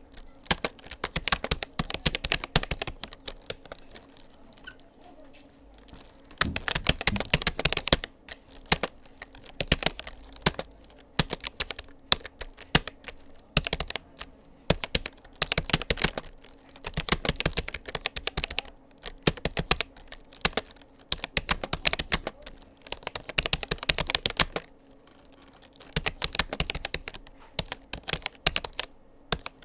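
Typing on a Rapoo computer keyboard: rapid key clicks in bursts, with brief pauses about four seconds in and again near the end.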